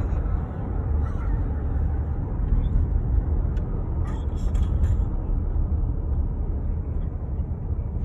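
Road noise heard inside a moving car's cabin: a steady low rumble of tyres and engine.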